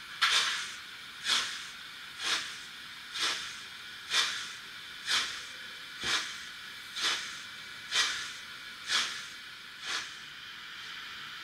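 Märklin/Trix 22960 BR 96 Mallet model locomotive's sound decoder playing slow steam exhaust chuffs through its loudspeaker, about one hissing chuff a second over a steady background hiss. The chuffs stop near the end, leaving only the hiss.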